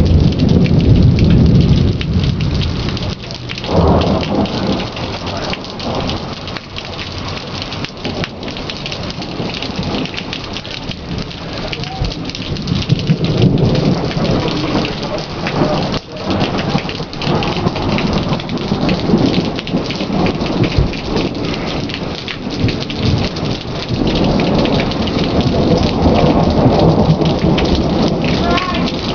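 Heavy rain pouring steadily during a thunderstorm, with low rolling thunder swelling several times. One rumble begins suddenly about four seconds in, and a long one builds near the end.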